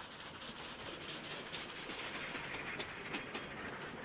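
Passenger coaches of a steam-hauled train rolling past close by, their wheels clacking repeatedly over the rail joints. The rail noise builds as the pushing steam locomotive at the rear draws level near the end.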